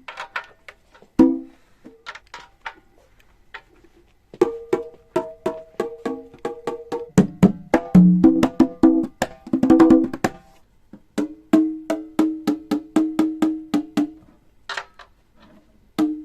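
Tuned percussion struck by hand in a studio session: a few scattered strokes, then from about four seconds in a quick, even run of sharp knocks, several a second, stepping between a few notes of different pitch, which stops a couple of seconds before the end.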